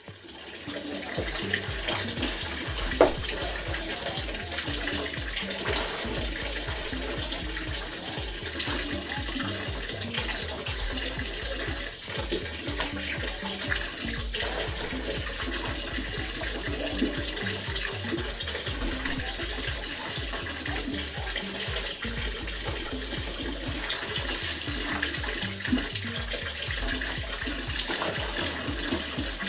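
Soapy water splashing and sloshing in a basin as clothes are washed by hand: wet garments are lifted, squeezed and scrubbed, and water streams off them back into the tub. A sharp knock about three seconds in.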